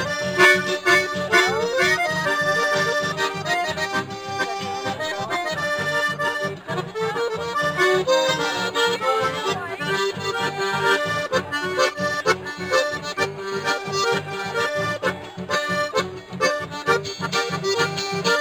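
Live accordion playing the melody over two strummed acoustic guitars, in a steady rhythmic instrumental passage of traditional folk music.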